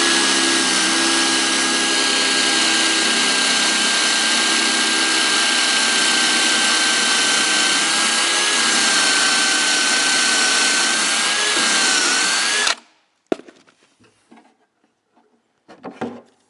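DeWalt cordless drill with a stepped pocket-hole bit running at a steady pitch as it bores a pocket hole through a Kreg pocket-hole jig into timber, stopping abruptly about thirteen seconds in. A few faint knocks follow.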